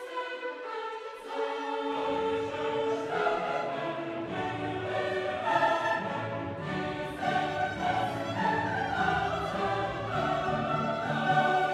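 Background classical music of choir and orchestra, with the low parts coming in about two seconds in.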